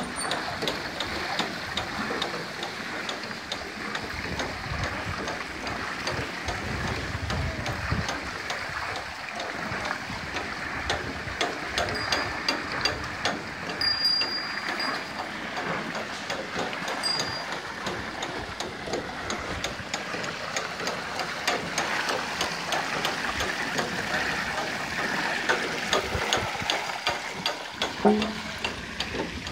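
Bullock-driven manual water pump running: its metal gear wheel turns with steady, regular clicking, over the rush of pumped water.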